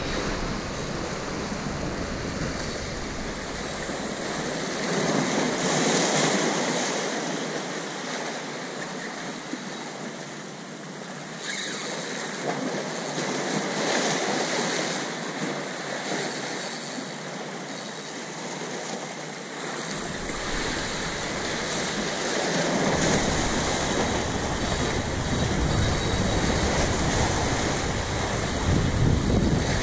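Sea waves washing and splashing against shoreline boulders, the surge swelling and easing every few seconds. Wind rumbles on the microphone at the start and again through the last several seconds.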